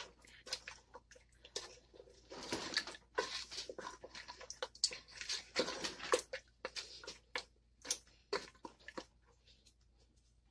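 A spoon stirring mutton korma in a cooking pot: irregular scrapes and light clicks against the pot, with a little wet squelching, dying away near the end.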